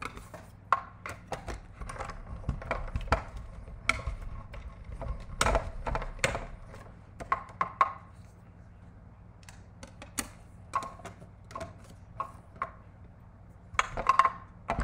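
Clear plastic cutting plates and dies clicking and knocking as they are handled and lifted at a manual die-cutting machine, with the die-cut paper pieces being pulled out. The taps come irregularly, with busier clusters a couple of seconds in, around the middle and near the end.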